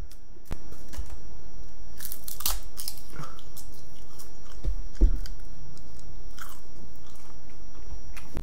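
Close-miked eating sounds: crisp dried seaweed (nori) wrapped around rice crunching and crackling as it is bitten and chewed, in irregular bursts, densest about two to three seconds in.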